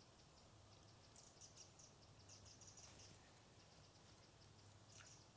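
Near silence, with a faint, rapid run of short high ticks, about five a second, from an insect such as a grasshopper or cricket in the bankside grass, and a few brighter high chirps in the middle and near the end.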